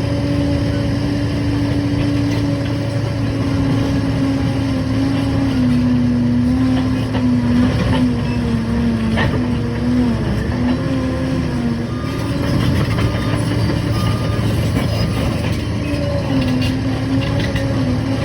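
Liebherr PR 746 crawler dozer's diesel engine running steadily with a heavy low rumble, its pitch sagging for several seconds midway, then coming back up.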